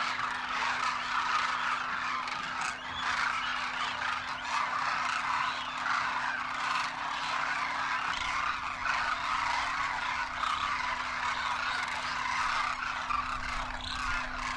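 A large flock of demoiselle cranes calling all at once, a dense chorus of many overlapping calls that never lets up. A faint steady low hum runs beneath.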